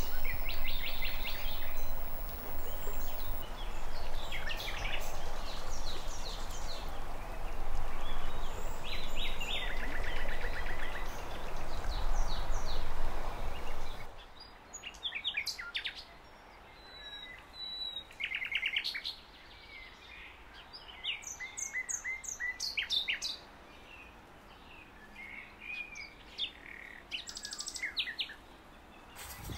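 Several wild birds singing and calling, with short chirps and a few rapid trills. For the first half this sits over a steady rushing noise, which cuts off abruptly; after that the birdsong continues over a quiet background.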